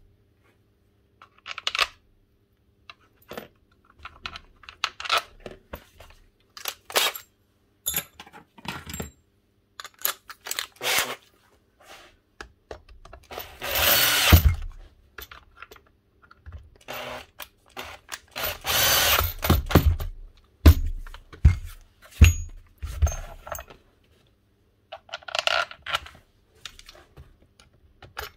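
Power drill-driver run in many short bursts, with two longer runs of a second or two near the middle, driving screws home while the hammer is reassembled. Small clicks and knocks of parts being handled fall between the runs.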